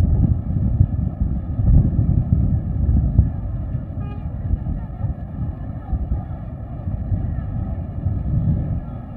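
Low, fluctuating rumble of outdoor background noise on an old film soundtrack, with a brief higher tone about four seconds in. It fades somewhat toward the end.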